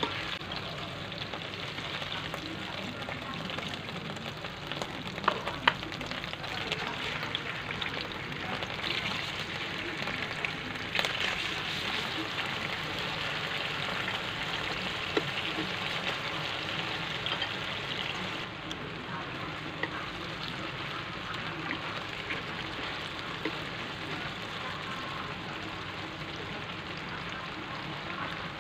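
Slices of lemongrass-and-garlic-marinated pork loin sizzling steadily in hot oil in a nonstick frying pan, with a few sharp clicks in the first half. The sizzle softens a little about two-thirds of the way through.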